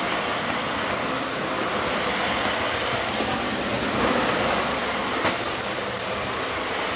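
Dyson vacuum cleaner running steadily under suction, with a few faint ticks over the even motor and airflow noise.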